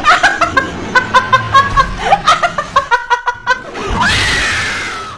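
A woman laughing hard in quick bursts, then about four seconds in breaking into one long, loud scream that rises and then slowly falls in pitch.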